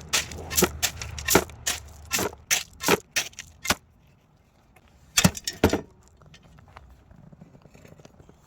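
Steel hand tool scraping and chopping into gravel ballast in a quick run of sharp strokes, about three a second, then two more strokes a little later.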